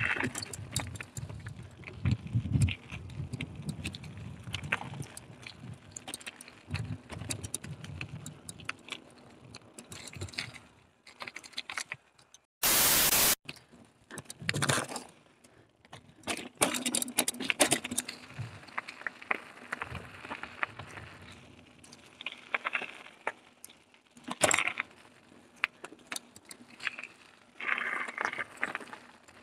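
Carrera Hellcat mountain bike being ridden over a rough dirt trail: a steady clatter and rattle of the bike's parts and tyres, with many sharp clicks and knocks over bumps. About halfway through there is a loud rush of noise lasting under a second.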